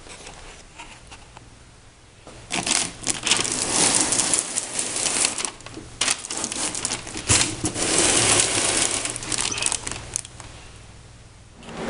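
Irregular crinkling, crackling rustle of handling noise in quick uneven bursts. It starts about two and a half seconds in and dies down near the end.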